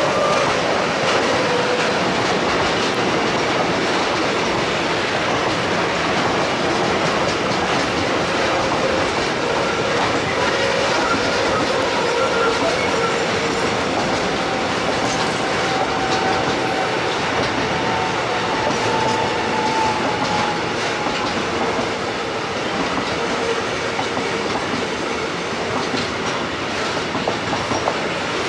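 Intermodal freight train rolling past, its wheels clacking steadily over rail joints, with faint wavering squeals from the wheels. It eases slightly in loudness in the last few seconds.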